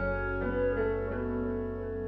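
Background music: held melodic notes, a new one coming in every third of a second or so, over a steady low bass.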